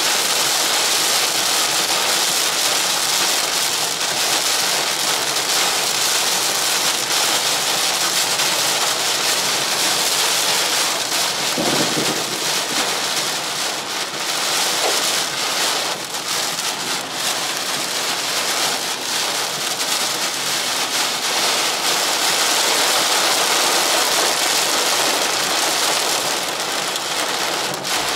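Heavy rain drumming on the roof and windscreen of a moving car, heard from inside the cabin as a steady hiss, with a brief dull thump about twelve seconds in.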